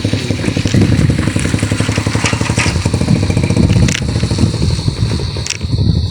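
A small engine running steadily with a fast, even putter. A few sharp clicks and clatters sound over it, and a thin steady high whine sits above it. The engine eases off near the end.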